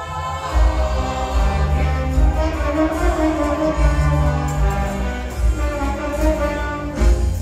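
A show choir and its live backing band performing: full band music with a strong bass beat and sustained sung lines.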